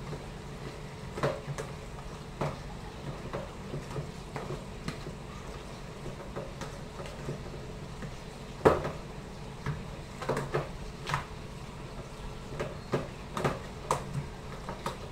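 Hands mixing marinated beef chunks in a plastic tub: irregular knocks and clicks as the tub is handled and shifts on the steel counter, with one sharper knock about nine seconds in.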